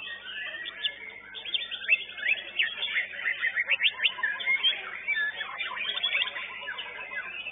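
White-rumped shamas singing in full competition song: a dense, unbroken run of quick sharp chirps, trills and sweeping whistles, the phrases of more than one bird overlapping.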